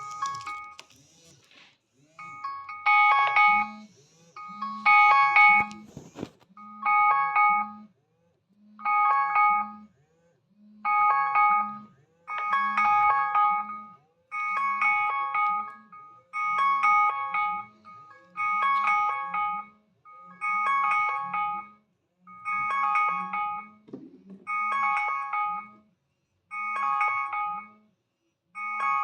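Philips S326 phone's alarm tone ringing: a short chiming phrase of several bell-like tones over a low pulsing note, repeating about every two seconds from about two seconds in. A few sharp clicks come before it starts and near six seconds.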